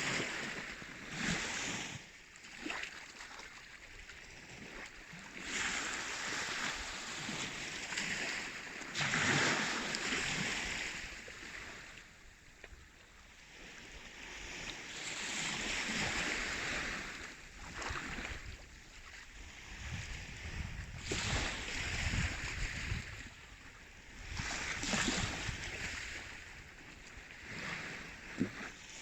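Baltic Sea waves washing in, the rush swelling and fading every few seconds.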